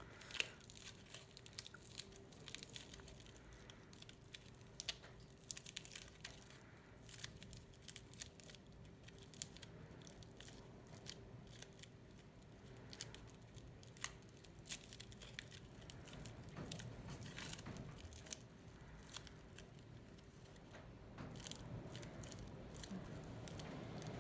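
Aluminium foil crinkling and crackling faintly as it is pressed and shaped by fingers and a fingernail, in many small irregular clicks.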